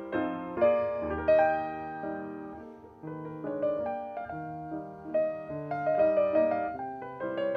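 Background music on solo piano: notes and chords struck one after another and left to fade, with a short lull about three seconds in.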